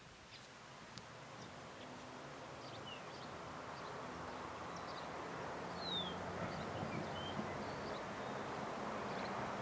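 Outdoor countryside ambience fading in: a steady hushing background noise growing slowly louder, with a few short, faint bird chirps scattered through it.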